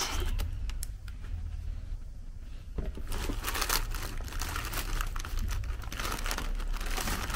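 Packaging being handled and crumpled, crinkling and rustling, with a few scattered crackles at first and a denser run of crinkling from about three seconds in.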